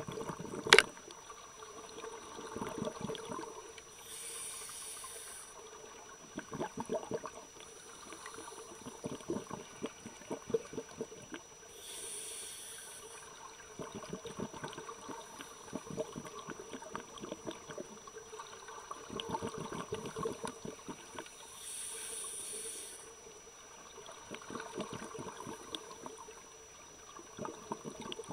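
Scuba divers breathing underwater through open-circuit regulators: a hiss of air drawn through the regulator about every eight to nine seconds, each followed by crackling, bubbling exhalations. A sharp click sounds shortly after the start.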